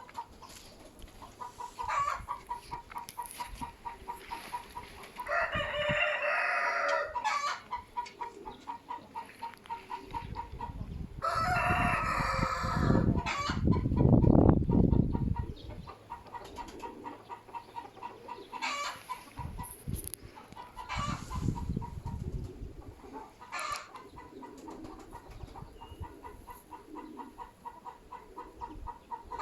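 A rooster crowing twice, about five and eleven seconds in, each crow lasting about two seconds. Gusts of wind buffet the microphone, loudest in the middle.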